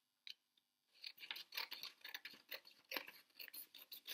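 Scissors cutting a folded sheet of A4 paper, trimming off the extra strip, in a faint, quick run of short snips that starts about a second in.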